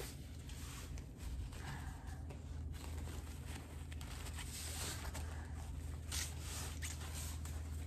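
Rustling and crinkling handling noise as a ribbon-trimmed banner is unwrapped and unfolded, with a few sharper crinkles, over a steady low hum.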